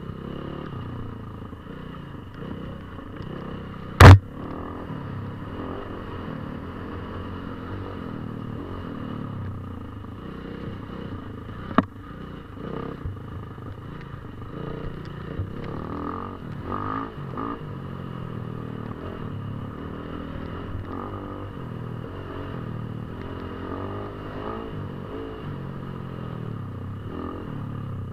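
KTM 450 EXC's single-cylinder four-stroke engine running and revving up and down, with a single sharp, loud knock about four seconds in and a fainter click near the middle.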